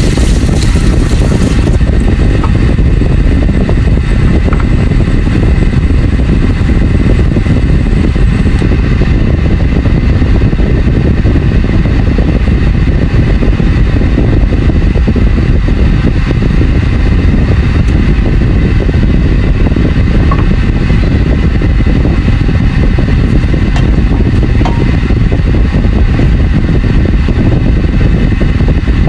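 Steady low rumbling noise of shrimp simmering in a covered pan on a cooktop, with a faint steady whine above it.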